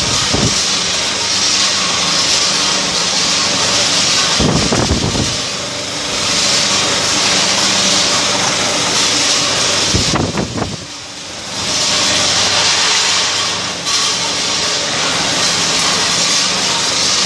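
Steady hissing machinery noise of a canning production line running, with a faint steady hum and a few low thuds; it briefly drops quieter about eleven seconds in.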